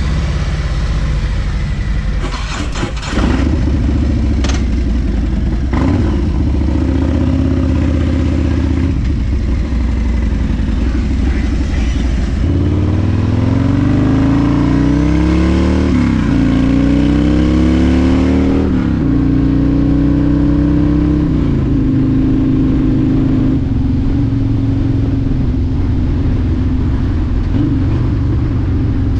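Harley-Davidson V-twin touring motorcycle riding off. About twelve seconds in, the engine note rises and drops back several times as it shifts up through the gears, then settles to a steady run.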